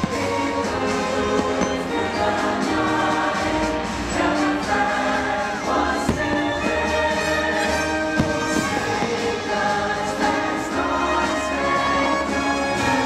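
Orchestral music with a choir singing: the fireworks show's soundtrack. A few sharp firework bangs come through the music, the clearest about eight seconds in.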